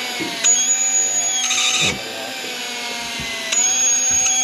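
Electric fishing reel (Daiwa Tanacom 750) motor whining as it winds in line against a hooked fish. The whine gets louder about half a second in, drops back near two seconds, and rises again near the end as the load changes.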